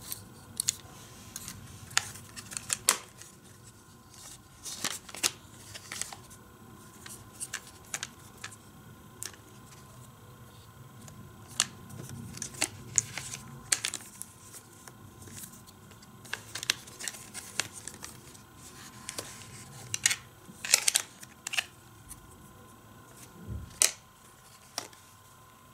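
Hot Wheels Power Lift Garage, a folding plastic toy playset, being handled: irregular light clicks and clacks as its plastic parts are unfolded, pushed and moved by hand.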